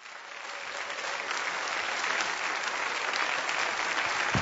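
A congregation applauding, a dense steady clapping that fades in over the first second. A low bump sounds near the end.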